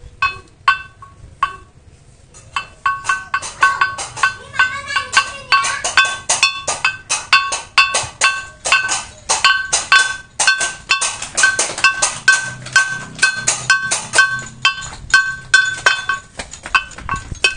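Improvised gamelan-style percussion for a children's toy barong: a small ringing object is struck over and over. The strikes are spaced at first, then from about two and a half seconds in they come fast and steady, several a second.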